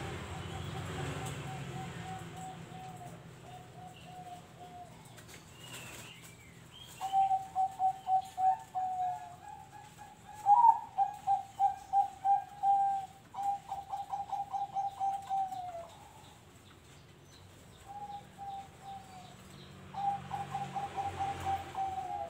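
Caged zebra doves (perkutut) cooing: several phrases of rapid, evenly repeated staccato coo notes, faint at first, louder through the middle and again near the end.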